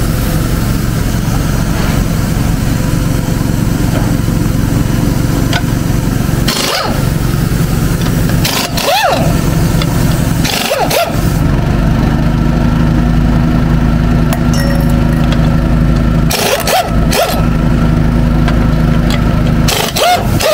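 Pneumatic impact wrench firing several short bursts on a trailer wheel's lug nuts, over a steady engine drone.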